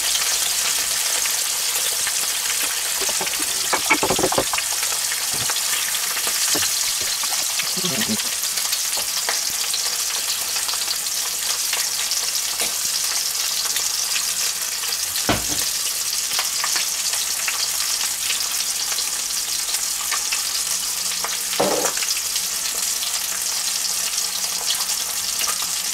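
Veal loin steak and a fried egg sizzling steadily in hot fat in a frying pan, with a few scattered knocks from utensils and pots.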